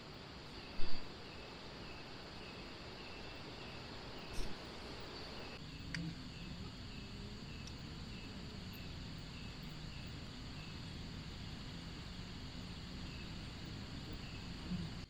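Crickets chirping steadily in a regular rhythm of about one and a half chirps a second, over a faint high insect drone. A sharp knock about a second in and a softer one around four seconds in.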